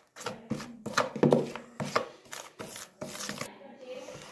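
A utensil scraping and knocking around a bowl, stirring a wet mix of spices and sauces in quick, irregular strokes that stop about three and a half seconds in.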